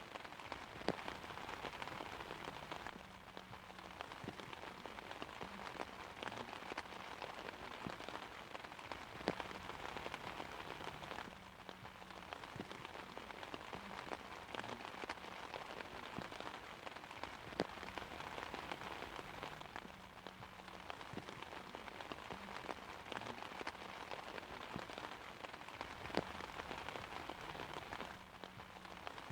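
Steady rain falling on an umbrella canopy, an even hiss of drops with a few sharper, louder single drops now and then.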